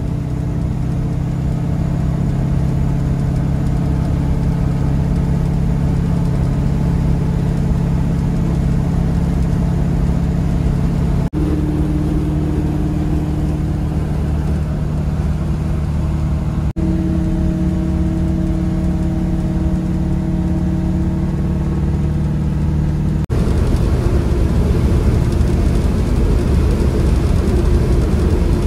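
Old pickup truck's engine droning steadily at highway cruising speed with road and wind noise, heard from inside the cab. The engine note jumps to a different pitch at three abrupt cuts, and after the last one the wind and road noise grow louder.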